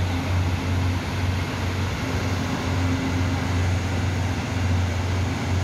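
Taiwan Railway DR3100-series diesel multiple unit rolling slowly along the platform, its underfloor diesel engines giving a steady low drone.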